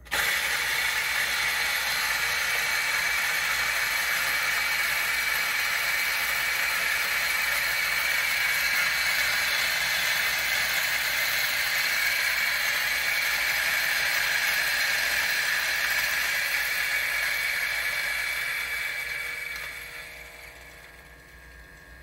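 Option-O Lagom P64 flat-burr grinder with SSP Unimodal burrs grinding espresso beans: a steady grinding whir that starts at once, holds for about eighteen seconds, then fades away as the grind finishes.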